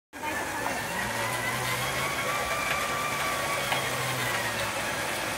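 Pedal-powered bicycle generator driving an electric shaved-ice machine, running steadily as the rider pedals: a faint whine that holds its pitch over a wash of mechanical noise.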